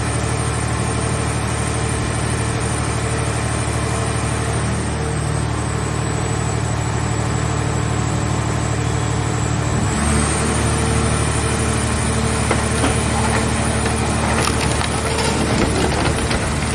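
Portable car baler's engine running steadily with a high whine. About ten seconds in the sound steps up and the whine rises slightly, and toward the end the sheet metal of a car shell crackles and creaks as it is crushed in the press.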